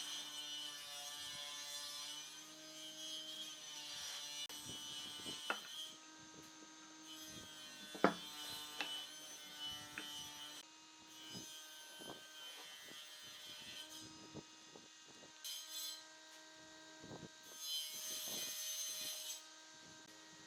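Wood being worked with a tool: stretches of scraping or rubbing, with scattered knocks and taps, the sharpest about eight seconds in, over a steady hum.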